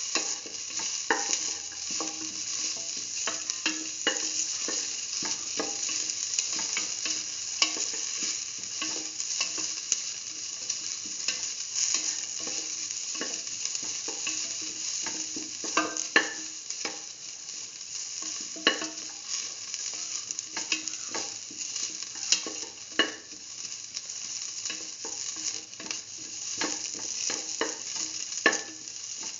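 Sliced red onions sizzling as they sauté in hot oil in a metal pan, with the steady hiss of frying broken by frequent scrapes and taps of a utensil stirring against the pan.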